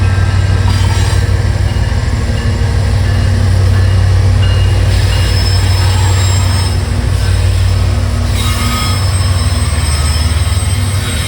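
A train passing through a railroad grade crossing: a steady, loud low rumble with rail and wheel noise.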